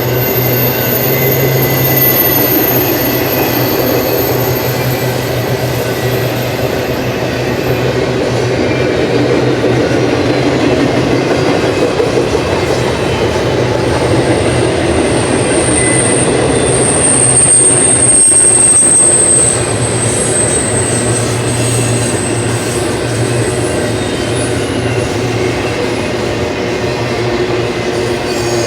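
BNSF intermodal freight train rolling past with a steady rumble of wheels on rail. A thin, high-pitched wheel squeal rises over it around the middle and fades a few seconds later.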